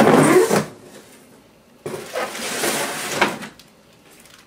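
Cardboard shipping box and its packing material being handled, in two bursts of rustling and scraping: a short one at the start and a longer one about two seconds in.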